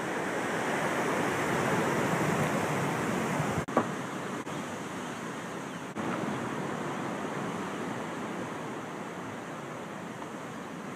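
Ocean surf and wind, a steady rushing noise with two brief breaks about four and six seconds in.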